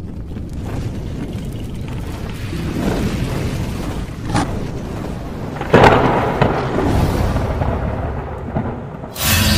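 Thunderstorm sound effect: steady rain and rumbling thunder, with a sharp crack about four seconds in and a loud thunderclap about six seconds in. Another loud burst comes in just before the end.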